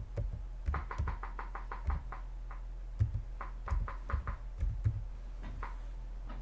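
Computer keyboard keys clicking as text is typed: a quick run of keystrokes about a second in, then more scattered bursts a couple of seconds later, over a low steady electrical hum.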